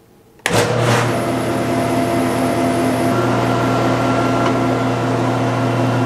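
Jet 20-inch industrial planer switched on about half a second in and running steadily with a low hum, its feed-roller chains and sprockets turning on the geared-down drive with the new 12-tooth lower sprocket.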